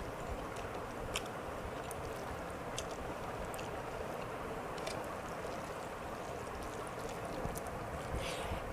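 Steady whoosh of an electric fan running, with a few faint soft clicks of eating.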